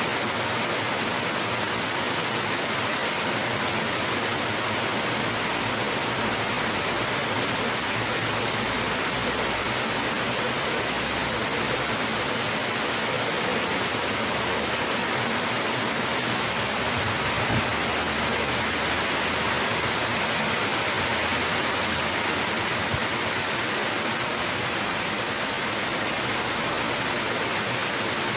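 Heavy rain falling steadily: a constant, even hiss with no letup.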